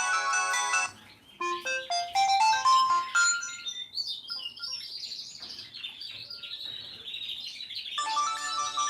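Old Samsung mobile phone ringtones playing in sequence. A polyphonic tune stops about a second in, followed by a short run of rising beeping notes and then high, warbling, birdsong-like chirps. A new polyphonic ringtone begins near the end.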